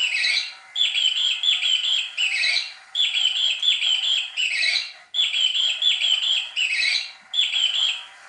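Electronic squeak sound effect from a Vayne Hot Pursuit cat toy disk, a bird-like chirping loop: two short chirps, then a falling squeak, repeated about every two seconds. It stops shortly before the end.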